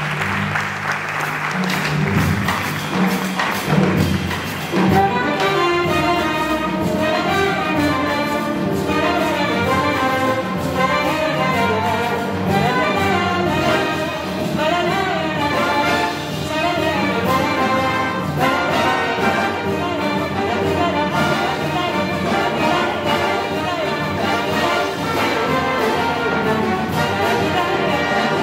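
Jazz big band playing with brass prominent, applause dying away over the first few seconds as the music gets going. From about five seconds in a woman sings a melody over the band.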